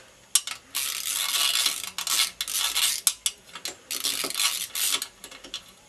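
Metal hand tools and small metal parts clattering and scraping: a run of irregular rasps and clinks, some lasting about a second, others short and sharp.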